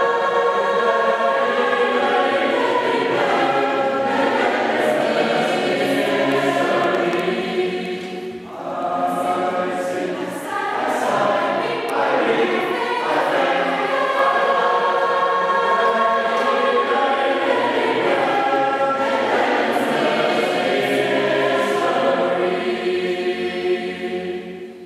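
Mixed choir of men and women singing in several parts. The phrases are held long, with a short break about eight seconds in, and the singing dies away near the end.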